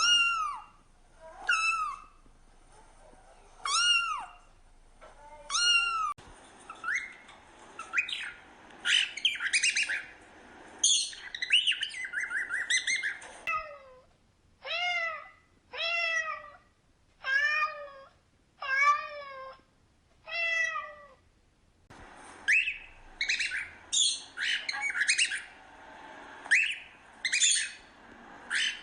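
A cat meowing repeatedly and a cockatiel chirping and squawking, taking turns. Midway comes a run of about six meows, each about a second apart, with bursts of rapid high chirps before and after.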